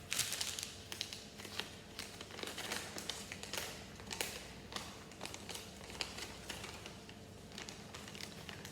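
Plastic Lego polybag crinkling and small Lego pieces clicking and tapping as they are handled, in many short irregular ticks.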